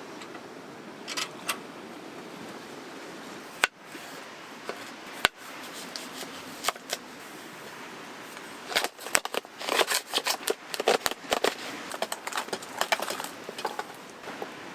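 Small hard objects being handled: a few scattered clicks, two sharp knocks, then about halfway through a dense run of rapid clicking and clattering over a steady low hiss.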